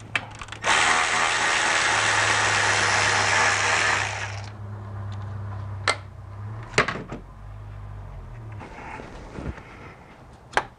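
Cordless electric ratchet running for about three and a half seconds, spinning out the 6 mm Allen bolt that holds an A/C line to the condenser. A few sharp tool clicks follow, over a low steady hum that stops near the end.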